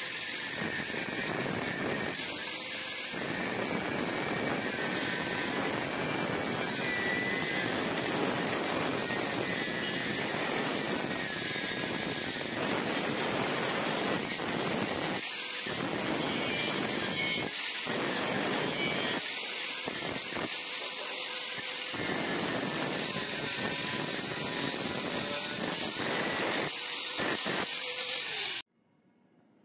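Electric angle grinder with a cutting disc cutting through the steel inlet pipe of a motorcycle silencer: a steady high whine over a grinding noise that drops out briefly several times as the disc comes off the metal. The sound cuts off abruptly near the end.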